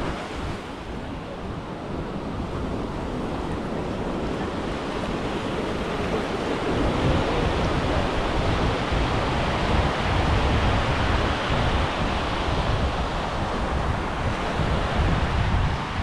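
Small waves breaking and washing up a sandy shore, with wind buffeting the microphone. The wash grows louder about six seconds in.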